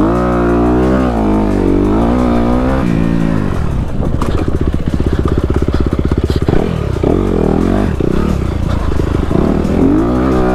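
Honda CRF250RX dirt bike's 250 cc four-stroke single accelerating hard, revving up and dropping in pitch again and again as it shifts through the gears, with a briefly held steady stretch in the middle. A couple of brief sharp clicks sound near the middle.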